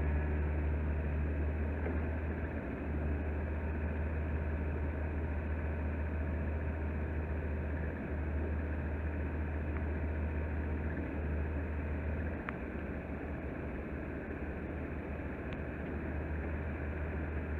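Takeuchi TB175 midi excavator's diesel engine running steadily with a low drone, easing slightly about twelve seconds in.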